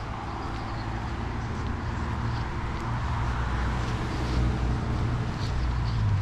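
A steady low engine-like hum over a noisy rush, growing gradually louder: a motor vehicle running nearby.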